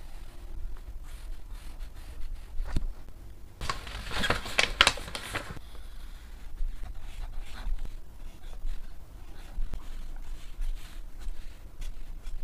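Paper being handled: light rustles and taps, with a louder scraping rustle of paper sliding or crinkling for about two seconds near the middle.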